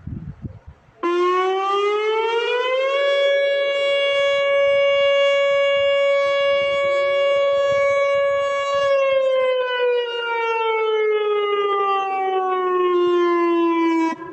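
Whelen WPS-2750 electronic outdoor warning siren sounding one wail cycle. After a brief low rumble in the first second, the tone rises for about two seconds, holds steady for about six, then falls slowly and cuts off just before the end.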